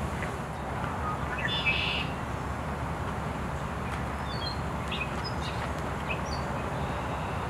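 Wild birds calling: a short call about a second and a half in, then several brief high chirps, over a steady low background rumble.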